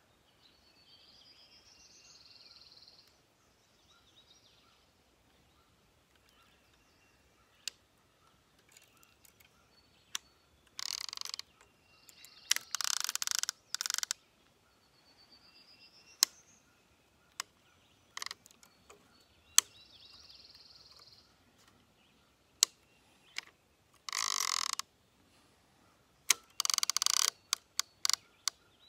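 A songbird singing a few short rising phrases, with sharp clicks and several short bursts of scraping noise from a spinning rod and reel being handled. The noise bursts are the loudest sounds.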